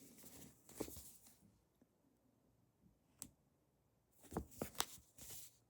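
A few faint clicks and soft rustles of comic books being handled, one sharp click a little past the middle and a short cluster near the end.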